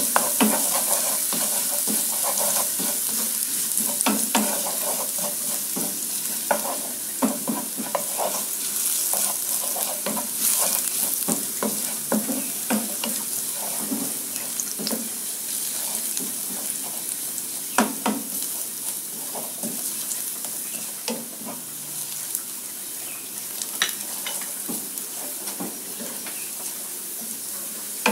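Minced garlic sizzling in a little oil in a non-stick frying pan, stirred with a wooden spatula that scrapes and taps against the pan with frequent short clicks. The sizzle is a steady hiss that eases slightly as the garlic begins to turn golden.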